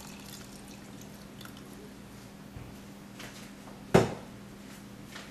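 Hot water pouring and dripping from a steel saucepan into a pot of sambar. About four seconds in there is one sharp metal knock.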